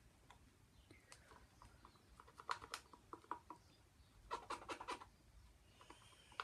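Faint crinkling and light clicks of a thin plastic bag being handled as white epoxy resin goes into it, in two short clusters about two seconds apart.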